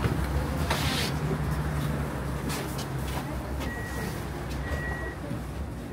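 Inside a tram: a steady low hum and rumble, with a short hiss about a second in. A few short high beeps sound in the second half.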